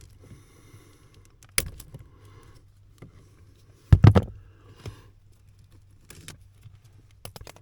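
Scattered clicks and knocks of hands and tools working under a car's dashboard, loudest as a double knock about four seconds in, with a quick run of small clicks near the end.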